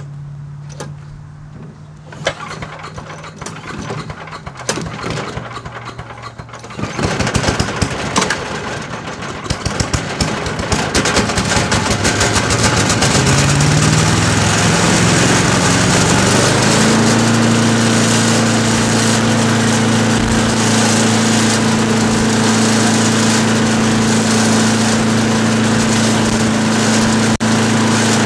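Wood chipper-mulcher's small gasoline engine running at low speed, joined by a dense rattling clatter that grows loud about a quarter of the way in. The engine is then throttled up, its pitch rising over a few seconds about halfway through, and it runs steadily at full speed.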